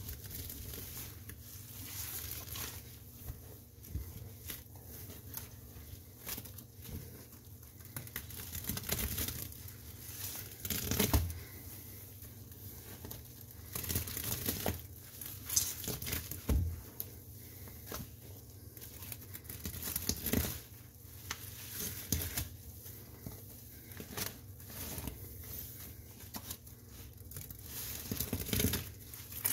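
Soapy sponge being squeezed and squished by hand, with wet foamy crackling in irregular bursts.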